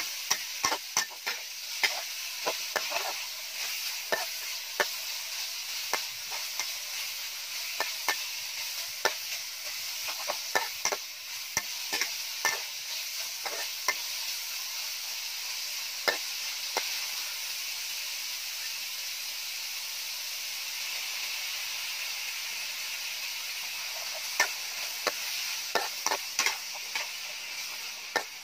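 Pork stir-frying in a steel wok: a steady sizzle with the metal spatula scraping and clinking against the pan, the strokes pausing for a few seconds past the middle while the sizzle carries on.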